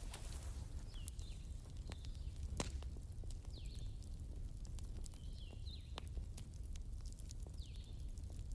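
Wood fire in a fireplace crackling, with scattered sharp pops, a steady low rumble and a few faint short high squeaks.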